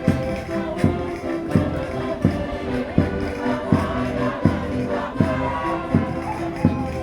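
Concertinas playing a lively Minho folk dance tune in sustained reedy chords, over a steady thumping beat about three times every two seconds.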